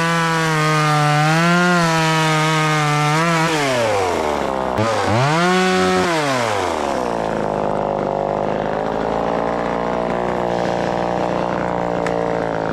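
Vevor 12-inch 25cc two-stroke top-handle chainsaw running at high revs with small dips in pitch, then the throttle is let off about four seconds in, blipped up and down once, and the engine settles into a steady idle.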